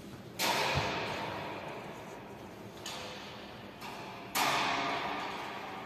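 Badminton rackets striking a shuttlecock during a rally: two loud sharp cracks, about half a second in and just over four seconds in, with fainter hits between them, each echoing for over a second in a large, bare hall. A brief low thud, a footfall on the wooden court, comes just after the first hit.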